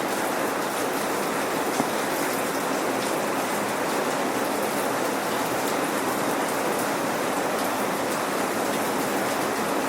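Steady, even rain falling and pattering on surfaces, without thunder.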